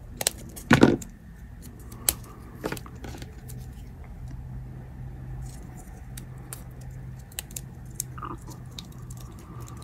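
Black electrical tape being cut and wrapped by hand around a small battery pack: a few sharp snips and clicks in the first three seconds, the loudest about a second in, then soft crinkling and scattered ticks of tape handling. A faint low hum runs underneath for a few seconds in the middle.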